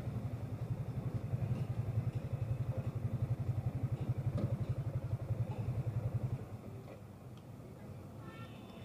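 Motorcycle engine running with a steady low putter, which fades out about six seconds in, leaving faint street traffic noise.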